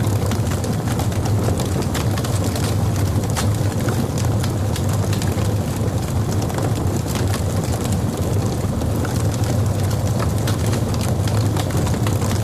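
Logs burning in a fireplace: a steady low rumble of the fire with frequent sharp crackles and pops.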